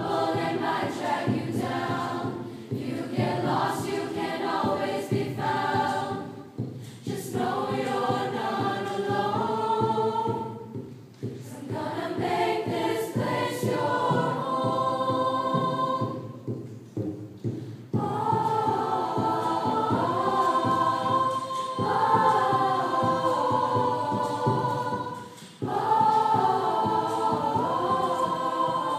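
Large mixed choir singing a pop song in phrases, with short breaks between them and a longer pause about two-thirds of the way through.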